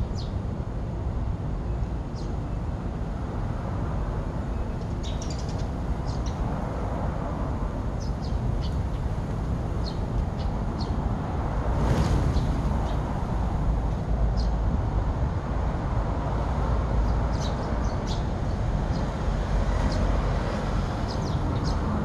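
A flock of Eurasian tree sparrows giving scattered short chirps over a steady low rumble; about halfway through, a brief rush of noise as the flock flies down together.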